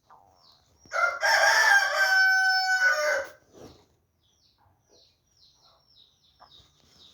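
A rooster crowing once, starting about a second in and lasting over two seconds, ending on a held note. Small birds chirp faintly throughout.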